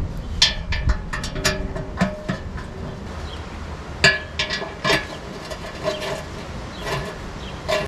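Irregular sharp metal clinks and taps of bolts and tools against the oil pan's edge, some briefly ringing, over a low steady rumble.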